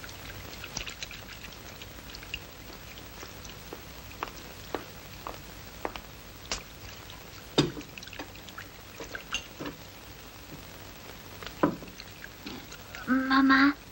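Crackle and hiss of an old film soundtrack, with scattered light clicks and two louder knocks in the middle. A child's voice calls out near the end.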